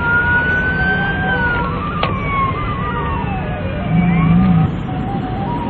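Emergency vehicle siren wailing, its pitch rising slowly and then falling, over a steady background din. A louder low sound comes in briefly about four seconds in.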